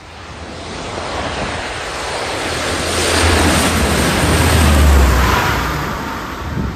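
Aircraft passing close overhead: its noise swells for several seconds with a strong low hum, peaks about five seconds in, then fades, with a slight falling tone near the end.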